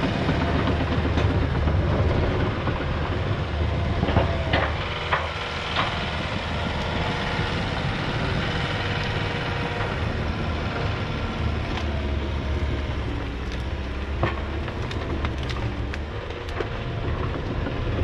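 Tracked excavator's diesel engine running steadily while it works brush and logs, with scattered sharp cracks and clanks, the most prominent about four to six seconds in and again between fourteen and seventeen seconds.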